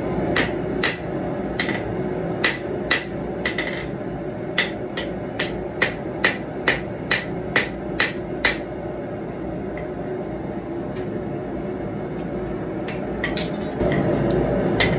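A small cross-peen hammer strikes red-hot steel on an anvil while forging a knife's integral guard. The blows ring sharply, irregular at first and then about two a second, and stop about eight and a half seconds in. A gas forge's burner gives a steady rush underneath, with a couple of lighter knocks near the end.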